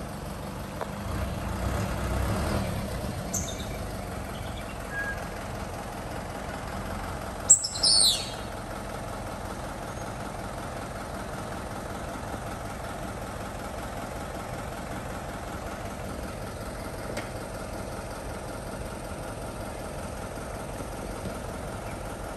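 Steady outdoor background noise with a brief, loud, high chirp falling in pitch about eight seconds in, and a fainter high chirp a few seconds earlier.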